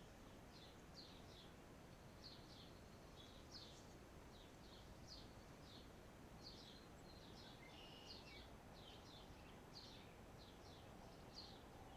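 Faint bird chirping: short, high chirps repeating a few times a second over a low background hiss.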